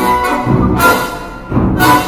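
Orchestral classical music with strings and timpani, with two loud accented hits of crashing percussion, about half a second in and just before the end.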